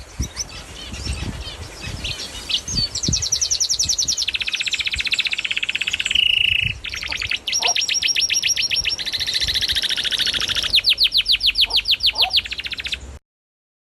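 Canary singing: long rolls of very fast repeated high notes, several trills in a row at different pitches. It cuts off abruptly near the end.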